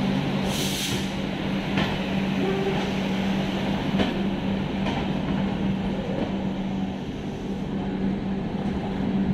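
Passenger train running: a steady rumble with a constant low hum and a few scattered clicks from the wheels on the rails. A brief hiss comes about half a second in.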